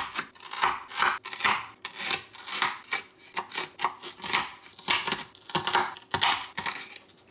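Kitchen knife cutting through an orange bell pepper on a wooden cutting board, slicing it into strips and then dicing it, about two strokes a second, stopping shortly before the end.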